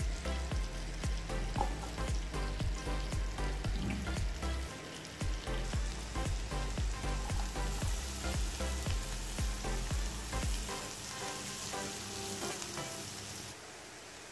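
Butter sizzling in a non-stick frying pan as sliced onion, chopped garlic and sliced ginger are dropped in, the sizzle growing stronger from about six seconds in and easing near the end. Background music with a steady beat plays underneath until about two-thirds of the way through.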